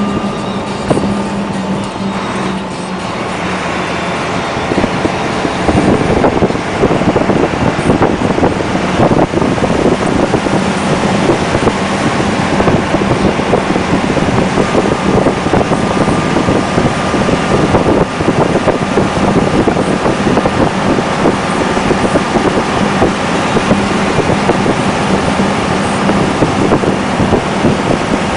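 Dump truck's diesel engine running, a steady hum at first that turns into a louder, rougher rumble about four to six seconds in and stays loud.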